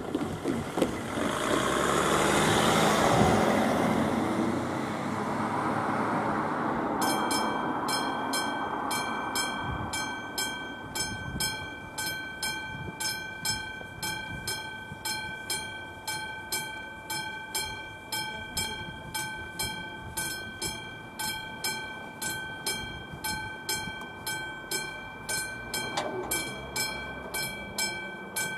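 A car drives past over the crossing. About seven seconds in, the level-crossing warning bell starts ringing in even strokes, about one and a half a second, signalling an approaching train.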